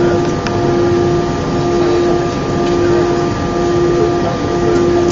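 Airbus A319 cabin noise: a steady rush of engine and airflow noise heard from inside the cabin, with a steady mid-pitched hum that drops out briefly about once a second.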